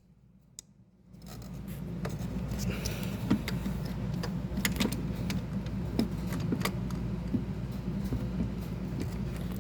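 Light metallic clicks and scrapes of channel-lock pliers pinching a spring hose clamp and sliding it onto a hose, over a steady low hum. The first second is nearly silent.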